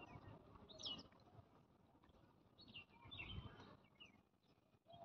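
Faint chirps of small birds, a few short high calls spread through near silence, with a brief low rumble about three seconds in.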